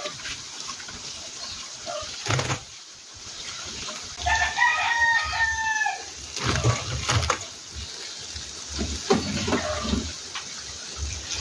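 A drawn-out animal call in a few joined segments, about two seconds long, starting about four seconds in, amid scattered clicks and low thumps.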